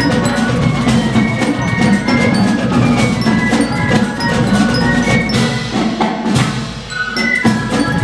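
A drum and fife corps playing a Latin-style band arrangement: flutes and bell lyre over drums and hand percussion, with many quick, crisp percussion strikes.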